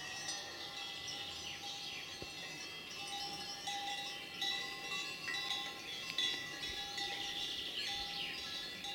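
Collar bells on grazing horses ringing, several bells of different pitches clanking irregularly and overlapping.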